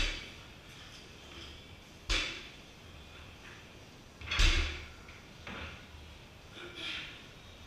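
A loaded barbell with bumper plates touching down on a wooden lifting platform three times, about two seconds apart. The third landing is the loudest, a heavy thud. Two fainter sounds follow.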